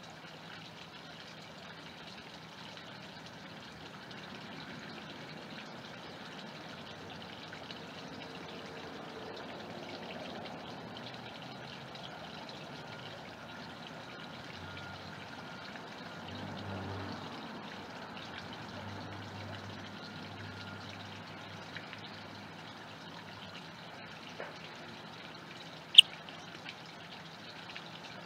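Steady trickle of running pond water, with one sharp click about 26 seconds in.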